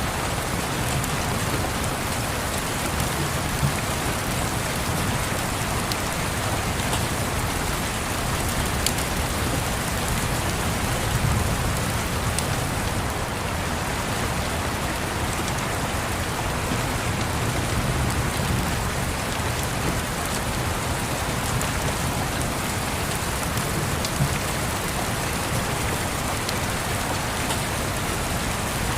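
Steady rain falling and pattering, with a few sharp crackles from a log fire.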